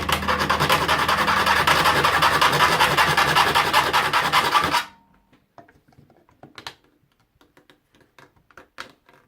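An abrasive tool scraping continuously on wood for about five seconds, then stopping suddenly. Light clicks and taps of handling follow.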